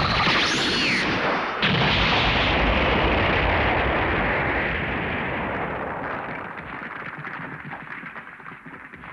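Animated-film explosion sound effect: a falling whoosh, then a sudden blast about a second and a half in, trailing into a long rumble that slowly fades away.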